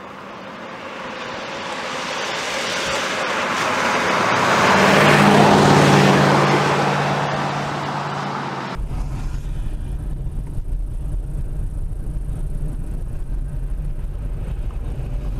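A vehicle passing on a wet road: tyre hiss and engine hum swell up to a peak about five seconds in and die away. About nine seconds in it cuts to the steady low rumble of driving along a wet road, heard from inside the vehicle.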